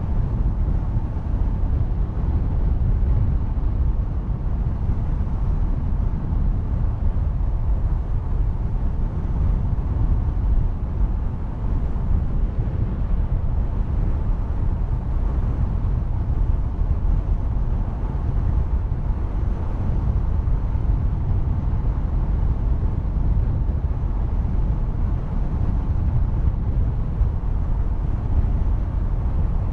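Motorcycle cruising steadily at about 65–70 km/h: a constant low rush of wind on the bike-mounted microphone, with road and engine noise beneath it.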